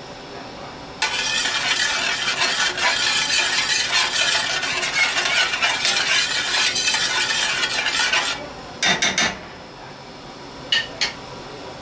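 A metal spoon stirring onions frying in butter in a stainless steel skillet, a dense scraping, rattling sound lasting about seven seconds over a low sizzle. Then a few loud knocks, and two light metallic clinks near the end.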